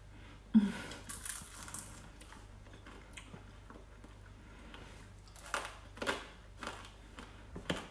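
Someone eating crispy air-fried chicken wings. A short "mm" hum comes just after the start, then a crunchy bite and chewing for about a second. Near the end there are a few short smacking sounds from lips and fingers at the mouth.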